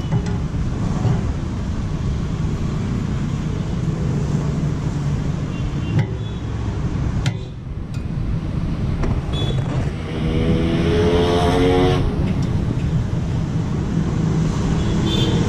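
Steady low rumble of a vehicle engine running, its pitch rising for a couple of seconds from about ten seconds in, with a couple of sharp clicks a little before.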